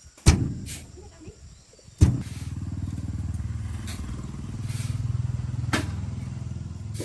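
Two heavy knocks, then a farm vehicle's engine starts about two seconds in and keeps running with a steady low, pulsing beat. A further sharp knock comes near the end.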